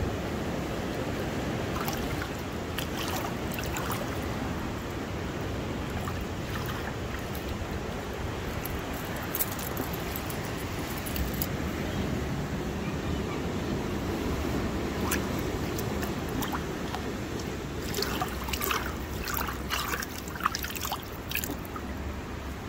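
Shallow seawater washing over rocks and sand in a rock pool: a steady rush of surf with water trickling and sloshing among the stones, and a flurry of small splashes near the end.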